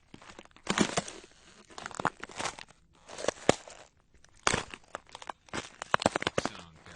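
Footsteps on ice: heavy crunching steps, a burst of crackling snaps with each footfall, coming slowly at about one a second.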